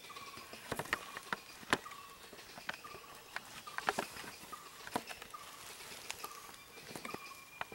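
Dry leaf litter and twigs crackling and snapping in irregular clicks as someone moves through forest undergrowth. Behind it, a short, slightly falling call repeats about once a second over a faint steady high whine.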